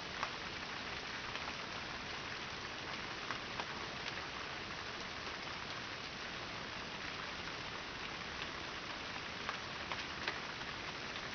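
Steady rain falling, an even hiss with occasional sharper drops ticking close by.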